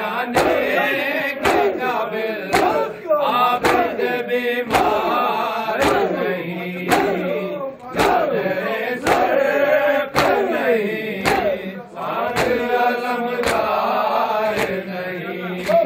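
A group of men chanting an Urdu noha in unison, over a steady beat of hands slapping their chests (matam) a little under twice a second.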